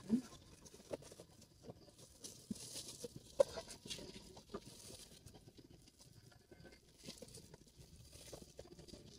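Faint, scattered light clicks and knocks with rustling, from plastic bags and metal utensils being handled while food is portioned. The clicks come mostly in the first half, then it grows quieter.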